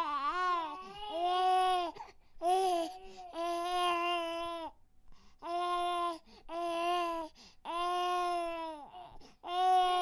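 Infant crying: a run of pitched wails, each about a second long, with short breaths between them.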